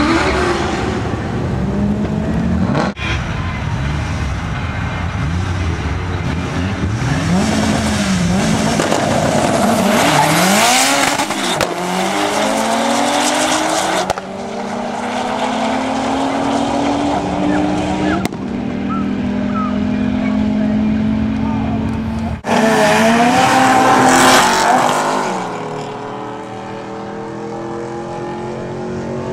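Car engines accelerating hard down a drag strip, their pitch rising and falling through several runs that are cut together. The loudest passes come about ten seconds in and again past twenty-two seconds.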